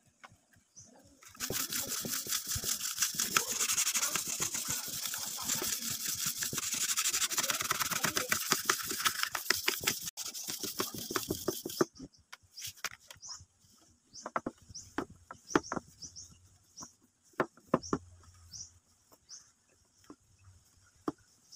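Knife blade being sharpened by hand, a sharpening stone rubbed quickly back and forth along the edge in rapid scraping strokes for about ten seconds. It then stops, leaving scattered light clicks and taps.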